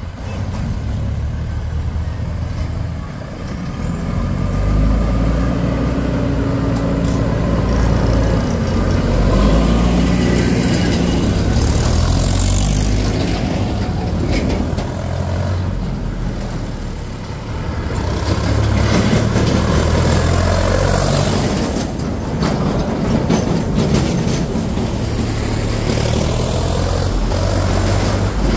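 Diesel engines of farm tractors and a backhoe loader running close by, their low drone shifting in pitch as the machines drive along the road.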